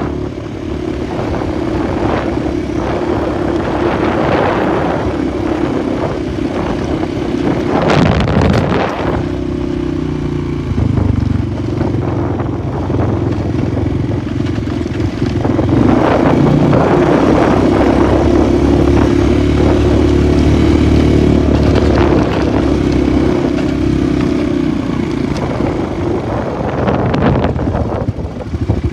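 Polaris 450 ATV engine running as it is ridden, its note rising and falling with the throttle. A few short bursts of rattling, rushing noise cut in over it, the strongest about eight seconds in.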